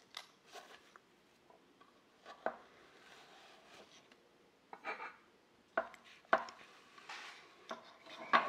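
Unpacking a watch from a foam-lined hexagonal metal tin: foam rubbing and scraping, with irregular sharp taps and knocks on the tin. The loudest knocks come in the second half.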